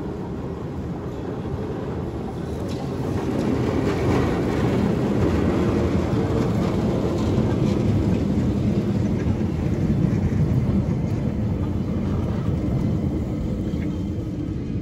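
Vintage electric tram, a motor car pulling a trailer car, running past on street track with its steel wheels rumbling on the rails. The rumble swells a few seconds in, is loudest as the cars pass, and fades near the end.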